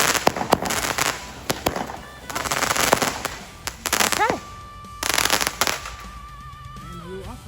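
Consumer fountain firework spraying sparks in surges of hiss, four of them, with sharp crackling pops scattered through.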